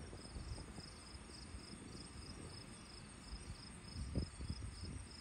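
Insects chirping in a steady pulsing rhythm, about two to three chirps a second, over a faint low rumble.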